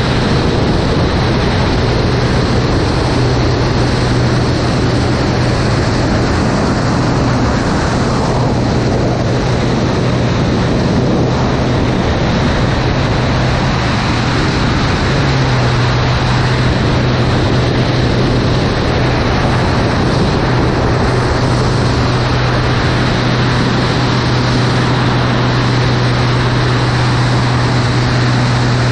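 Light aerobatic airplane's piston engine and propeller droning steadily in flight, under heavy airflow rush over the microphone. About halfway through the drone steps up slightly in pitch and strength.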